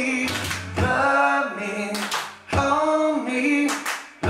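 A man singing a song live with an acoustic guitar, holding long notes in three phrases.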